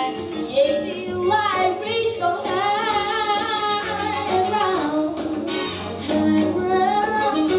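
A female solo vocalist singing over a backing track, holding and bending sustained notes.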